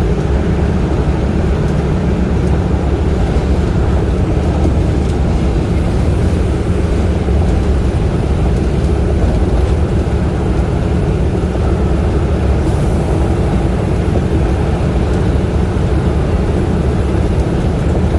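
Highway driving noise from a moving vehicle: a steady, loud, low rumble of engine and tyres on the road, unchanging throughout.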